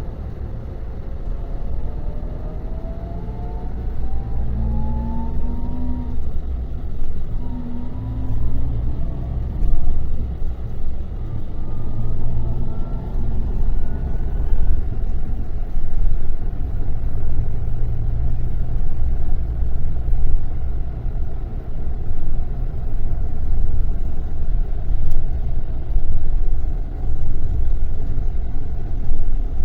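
Scania K400 bus's 13-litre six-cylinder diesel engine pulling under load with a deep rumble. A whine climbs in pitch, breaks off and climbs again several times in the first half as it works up through the gears, then the engine runs on steadily.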